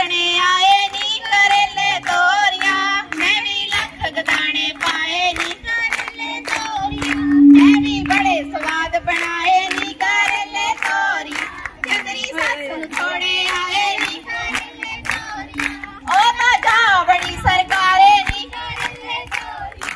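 Girls and women singing Punjabi giddha boliyan together with steady rhythmic hand clapping. A loud held note stands out about seven seconds in.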